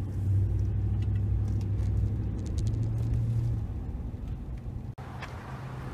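Car engine and road rumble heard from inside the cabin while driving, a steady low drone that eases off after about three and a half seconds. It breaks off sharply about five seconds in and gives way to a lower, steadier hum.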